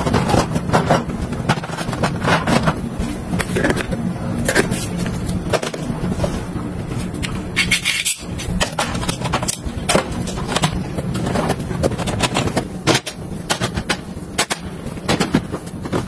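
Hard plastic refrigerator organizers and storage bins clacking and knocking against each other and the glass shelves as they are handled and set in place: many quick, irregular clicks over a steady low hum.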